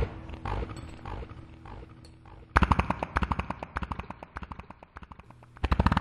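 Soundtrack sound effects: a few dull thumps fading out, then a sudden burst of rapid rattling clicks, about ten a second, that thins out and dies away, with a second burst starting near the end.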